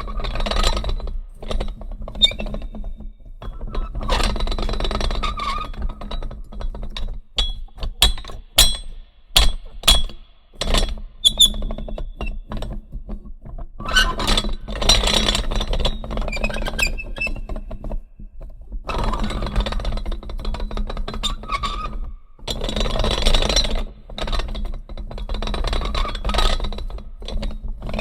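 Small metal mechanical gears being turned and worked: runs of rapid whirring and ratcheting a second or two long, and a cluster of sharp clicks and clinks about eight to eleven seconds in. A steady low hum of background music runs underneath.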